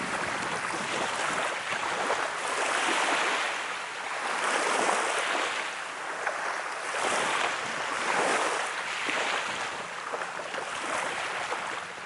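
Small waves washing in on the sandy estuary shore, swelling and fading every couple of seconds.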